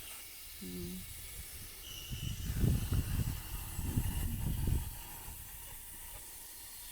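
Air hissing steadily out of a car tyre's valve as the tyre is let down for driving on sand, with some low buffeting rumbles in the middle.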